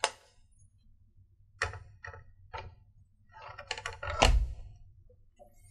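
A motherboard and its mounting hardware being handled on a wooden desk: a few light clicks, then a cluster of knocks ending in a heavier thunk about four seconds in.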